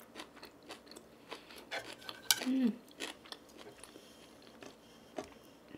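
Close-miked chewing and small wet mouth clicks of someone eating, with a sharp click of chopsticks against a dish a little over two seconds in and a short falling hum from the eater right after.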